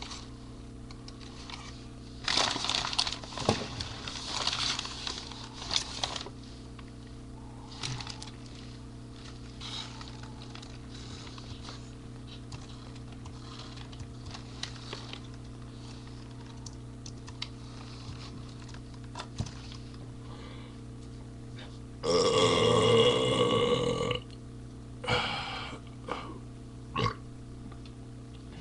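A man's loud, drawn-out burp lasting about two seconds, near the end, after a stretch of scattered rustling and handling noises, over a steady electrical hum.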